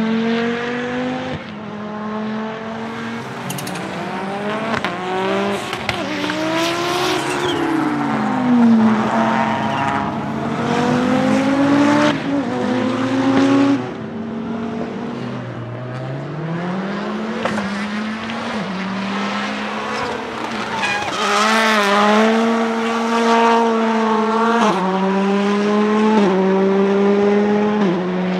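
Rally car engines revving hard on track, their pitch climbing and dropping again and again through gear changes as the cars pass, with short sharp cracks among the engine notes.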